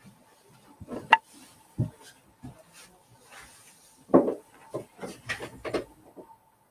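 A few irregular knocks and clicks of handling noise close to the microphone, the loudest about a second in and about four seconds in, over a faint steady hum.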